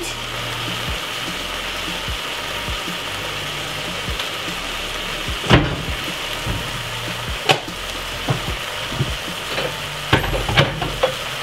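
Diced potatoes with onion, garlic and spring onion sautéing in a saucepan, a steady sizzle. A few sharp clicks come near the middle and again near the end.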